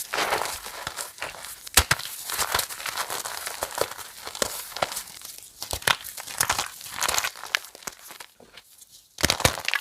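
Reformed chalk crunching and crumbling: a dense, irregular run of crisp crackles and crunches, with a brief lull near the end before another loud crunch.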